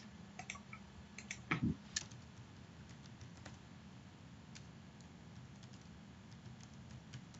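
Faint computer keyboard typing: scattered keystroke clicks, busier in the first couple of seconds and sparser after, with one soft low thump about a second and a half in.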